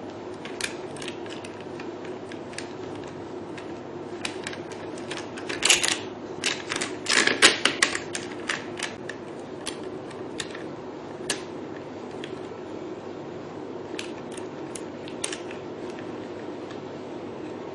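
Irregular clicks and light plastic knocks from handles and holders being handled and fitted into place, most of them in a cluster from about six to eight seconds in, over a steady low hum.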